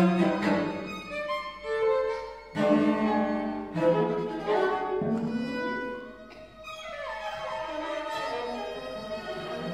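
Live contemporary chamber music from a new-music ensemble, led by violin and other bowed strings: sustained notes broken by several sharp accented attacks, a rising slide in pitch about halfway through, and held notes after a brief drop in loudness.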